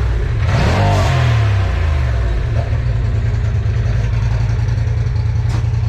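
2020 Polaris RZR Turbo S's turbocharged engine running hard and loud, its revs falling about a second in and then holding steady, with smoke from the burnout filling the garage.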